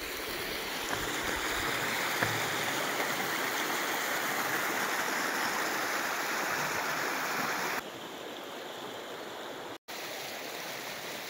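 Small rocky stream rushing and splashing over boulders, steady. About eight seconds in it cuts to a quieter, more distant wash of water.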